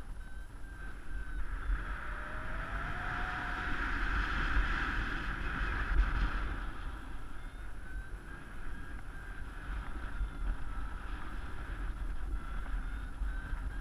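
Wind rushing over the microphone of a paraglider's harness-mounted camera in flight, with deep buffeting rumble that swells about halfway through. A string of short high beeps, typical of a paragliding variometer, sounds at the start and again through the second half.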